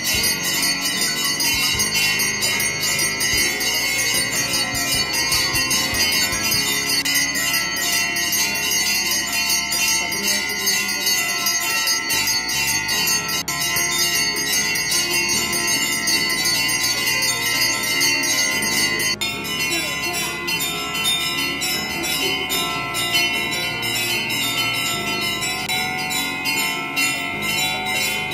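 Temple bells ringing rapidly and without a break during the aarti lamp offering, a dense metallic jangle of many overlapping tones. The ringing shifts a little about two-thirds of the way through.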